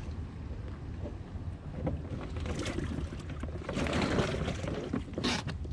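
Wind buffeting the microphone on a fishing boat over a steady low hum, with louder rushes of noise partway through and again near the end.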